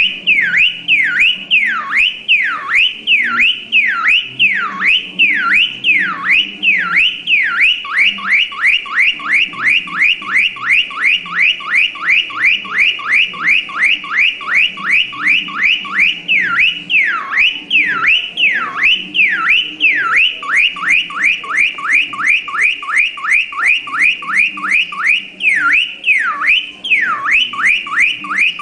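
Electronic car alarm siren wailing in rising and falling sweeps: slow sweeps at first, a fast rapid-fire run for about eight seconds, then slow sweeps again.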